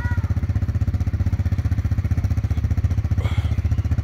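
ATV engine idling steadily, with an even, rapid low pulse.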